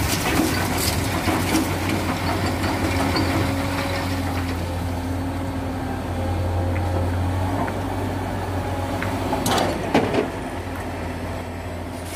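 Excavator diesel engine running steadily close by, with a low hum throughout. A brief metallic clatter comes about ten seconds in.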